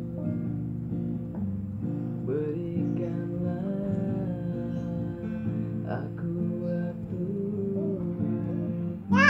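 Acoustic guitar strummed steadily, with a man singing along. Near the end a brief, loud, high sound falls quickly in pitch.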